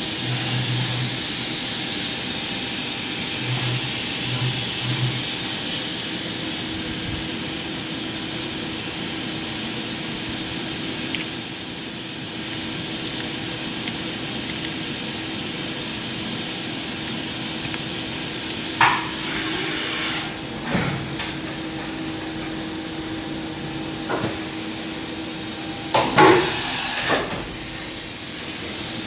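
Doosan DNM 500 II vertical machining center running with a steady mechanical hum and whine. There are a few short low pulses in the first seconds, and a few brief clunks with bursts of hiss in the second half, the loudest near the end.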